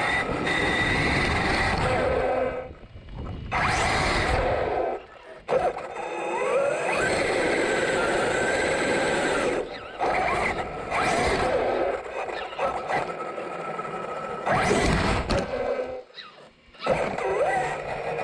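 Arrma Kraton 8S RC truck's brushless motor and drivetrain whining, rising in pitch several times as it accelerates, with tire noise. The sound drops out briefly a few times when the throttle comes off.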